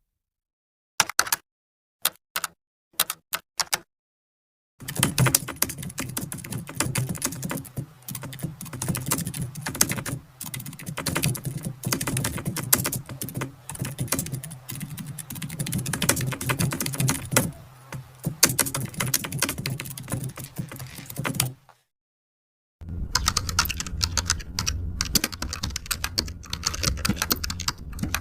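Fast typing on a computer keyboard: a few separate clicks at first, then a long run of rapid key clatter, a short pause, and a second run with a heavier low thud under the keys.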